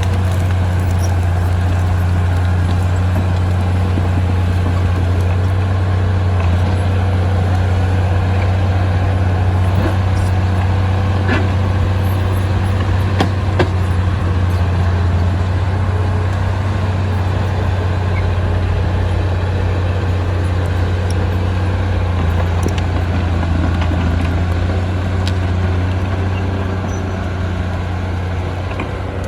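Diesel engine of heavy earthmoving equipment running steadily under load, with a few light clanks.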